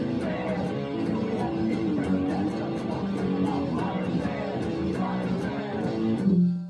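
Electric guitar played fast, with quick runs of notes and chords, ending on a loud held note that drops away at the end.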